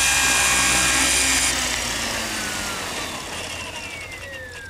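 Compass Atom 500 electric RC helicopter's motor and rotor running steadily at hover, then powered down about a third of the way in as it sets down; the rotor head winds down with a whine falling steadily in pitch and fading.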